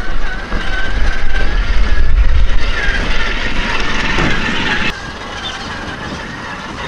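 1/8-scale RC crawler's electric motor and gearbox whining as it drives over loose dirt, the pitch wavering up and down with the throttle, over a low rumble. The sound drops sharply about five seconds in, and the whine goes on quieter after that.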